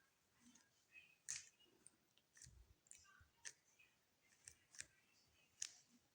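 Faint, irregular clicking of a Rubik's cube's plastic layers being turned by hand while an algorithm is performed.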